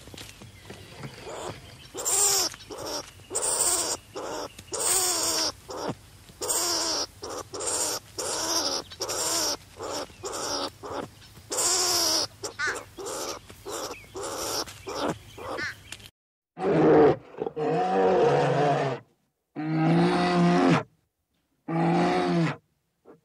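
Animal calls: a quick run of many short, pitched cries, then, after a cut, several longer and lower calls.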